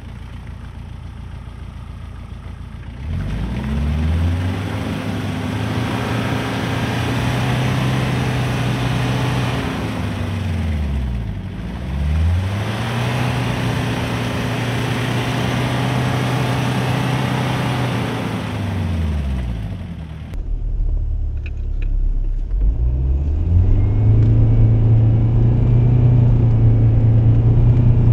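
1997 Jeep Cherokee XJ's 2.5 turbo diesel engine revved up hard twice, each time holding for several seconds and then dropping away, with the rushing noise of Cooper STT Pro tyres spinning in mud. Past the middle the sound changes to the engine heard from inside the cab, low at first, then revving up and holding.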